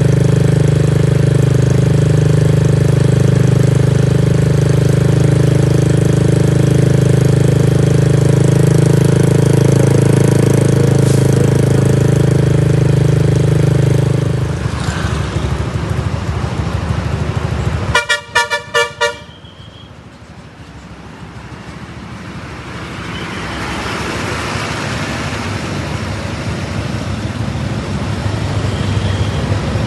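A large diesel bus engine runs steadily and loudly close by, then drops away about halfway through. Soon after, a telolet horn sounds a quick run of about seven short toots, and road noise from an approaching vehicle rises.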